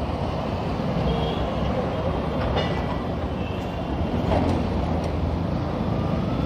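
Bajaj CT 125X motorcycle's 125 cc single-cylinder engine running steadily at low speed in traffic, with road and wind noise and the hum of surrounding vehicles.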